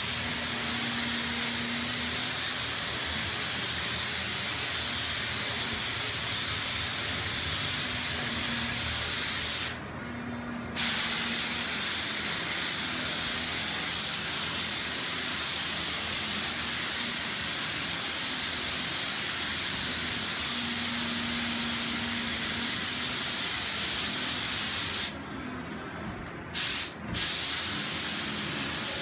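Spray gun hissing steadily as clear top coat is sprayed onto oak cabinets. It stops for about a second about ten seconds in, then twice in quick succession near the end before resuming.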